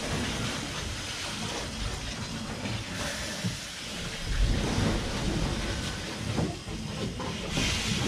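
The Levant Mine whim engine, a steam beam engine driving a flywheel to wind ore, running under steam: a steady hiss of steam over the low rumble of the moving engine, with louder rushes of steam about three seconds in and again near the end.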